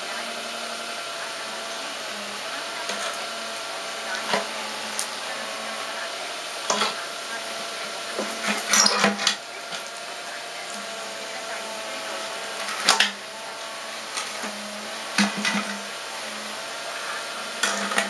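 Cat 303 mini excavator's diesel engine running steadily, with a series of sharp clanks and knocks every few seconds from the machine at work.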